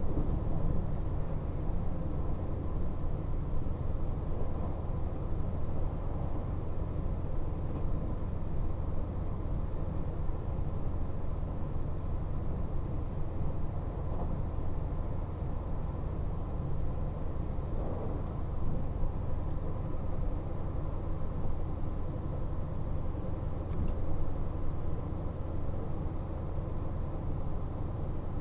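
Steady low rumble inside a KiHa 261 series diesel express train running at speed: engine and wheels on rail heard through the car body.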